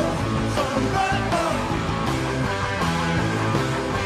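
Rock band playing live: electric guitars, bass guitar and drums with a steady beat.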